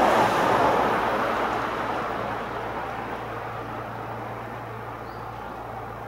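Noise of a passing vehicle, loudest about half a second in and then fading away, over a steady low hum.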